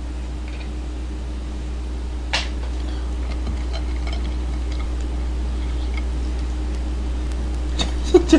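Clicks of a spoon and crab shell against dishes as raw soy-marinated crab (ganjang gejang) is picked apart, over a steady low hum. There is one sharper click about two seconds in and a few quick clicks near the end.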